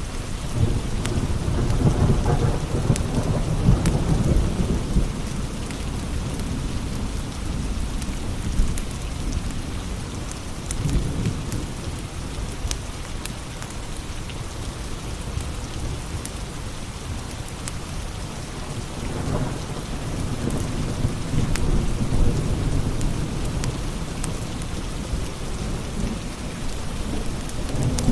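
Steady rain with low thunder rolling in and fading several times, longest from about nineteen seconds in. Scattered sharp crackles from a wood fire sound over it.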